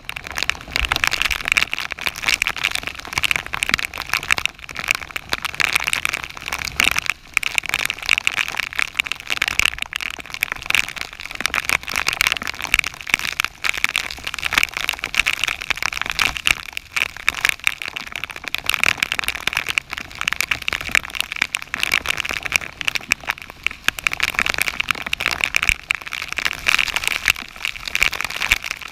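Torrential thunderstorm rain pelting a kayak and the river surface: a steady, dense hiss of rain with a thick patter of close drop impacts.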